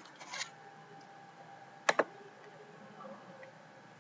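Computer mouse clicking: a sharp double click about two seconds in and a softer cluster of clicks just after the start, over a faint steady hum.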